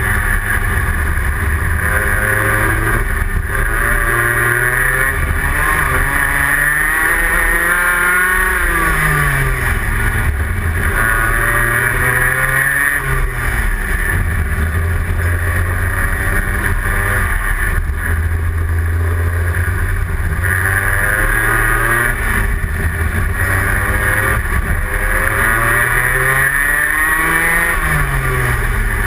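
Rotax Max 125 cc single-cylinder two-stroke kart engine at racing speed, heard from on board, its pitch climbing along the straights and dropping as it slows for the corners, several times over.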